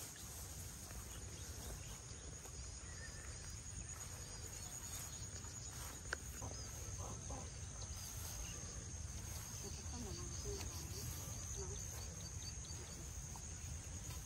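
Quiet rice-field ambience: a steady high-pitched insect drone, with faint chirps from birds and other animals in the distance.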